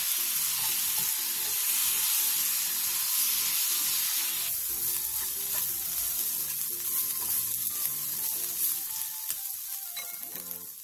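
Slices of marinated duck breast sizzling in a little oil in a frying pan over medium heat as they are stirred with wooden chopsticks. The sizzle grows fainter about halfway through.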